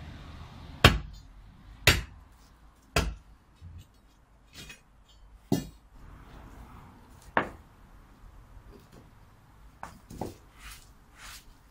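Long steel digging bar jabbed down into stony ground at the foot of a wooden gate post, digging it out: sharp strikes, three about a second apart, then two more spaced further out, with lighter knocks between and near the end.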